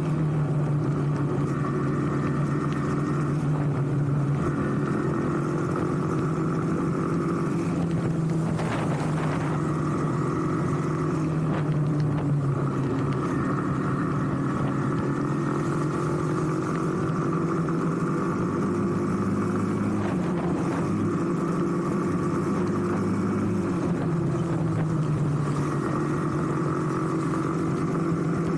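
Small motorcycle engine running at a steady cruise, its pitch drifting slightly up and down, over a continuous hiss of tyres on a wet road.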